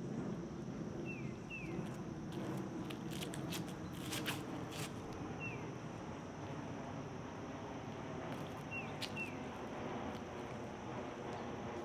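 Outdoor ambience: a bird giving short falling chirps, a pair about a second in, one in the middle and another pair near the end, over a steady low rustle and a few scattered clicks.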